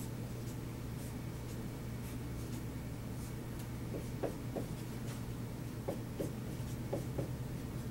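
Marker writing on a whiteboard: faint strokes, with short squeaks in quick pairs from about halfway through, over a steady low hum.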